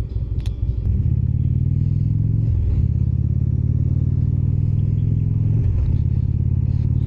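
Indian Springfield's V-twin engine running under way at a steady engine note, with two brief dips in the note, about a third and three-quarters of the way through.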